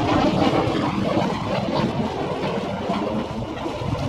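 Shoreline harbour ambience played back at five times speed: an even rushing noise of wind and water over an uneven low rumble.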